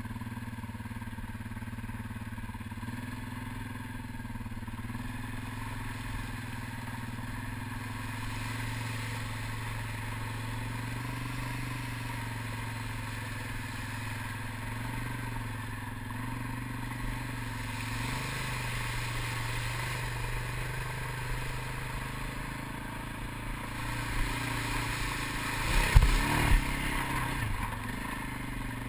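ATV engine running steadily while the quad is ridden along, with a few loud thumps near the end.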